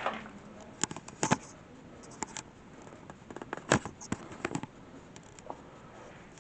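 Scattered sharp clicks and light knocks at irregular spacing, some in quick clusters, the loudest about two thirds of the way through.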